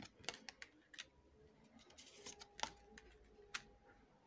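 Faint handling of tarot cards: a few short clicks and taps, about half a dozen spread irregularly, as cards are drawn and laid down.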